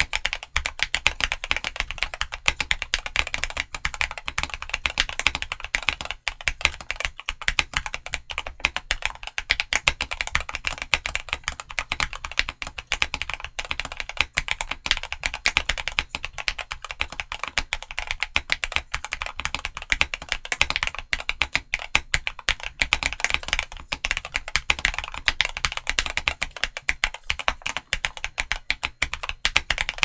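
Continuous fast typing on a Skyloong GK87 Pro mechanical keyboard with Gateron G-Pro Brown tactile switches and MDA-profile PBT pudding keycaps, a dense run of key clacks.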